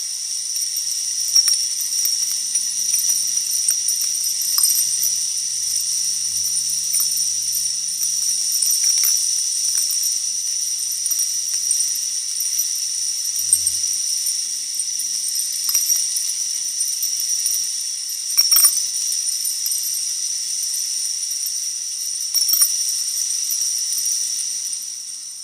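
Kinetic sound installation with many small motor-driven parts, making a dense, steady, high-pitched metallic rattling and whirring, with scattered sharper clicks.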